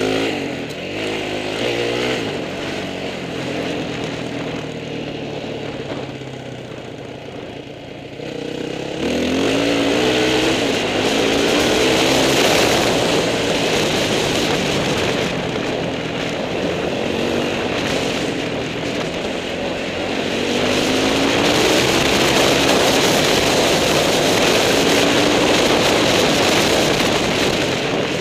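Trail motorcycle engine running under way, its note climbing again and again as it accelerates up through the gears. From about nine seconds in, a loud rushing noise of wind and road joins it, as loud as the engine or louder.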